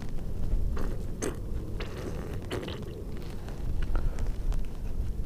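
Wet squelches and squirts from a rubber-bulb stomach pump being squeezed to flush water into a bass's stomach, a handful of short squishes over a low wind rumble on the microphone.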